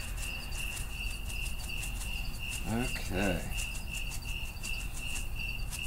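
Cricket chirping steadily, about four high chirps a second.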